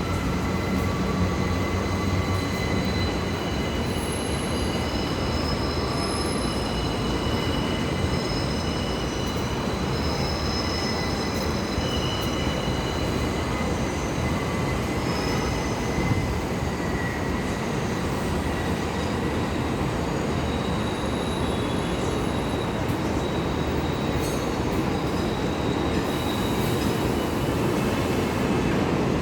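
New York City subway train running through the station, a steady rumble of wheels on rail with several high, drawn-out squeals that come and go.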